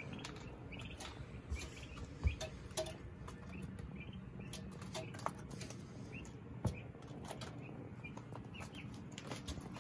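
Young chicks peeping in short, scattered chirps, with occasional soft taps and two sharper knocks, one about two seconds in and one near seven seconds.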